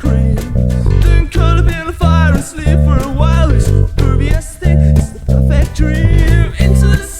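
Jazzy 1980s pop-rock song with a male voice singing, carried by a bouncing plucked bass line played on a violin-shaped electric bass for a woody, upright-bass-like tone.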